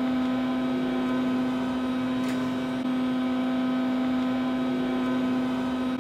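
Steady hum inside an OTIS hydraulic elevator cab, the sound of the hydraulic pump unit running while the car travels. There is a faint click about two seconds in.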